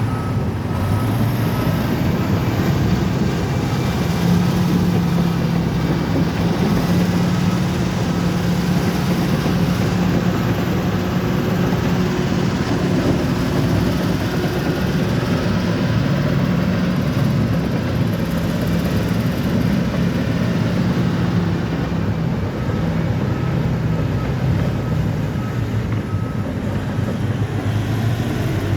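Bulldozer's diesel engine running steadily, with a constant low hum whose pitch shifts slightly as the machine works.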